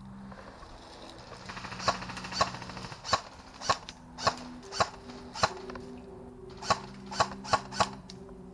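Airsoft gun firing about eleven single shots, sharp and evenly paced about half a second apart, with a brief pause between them.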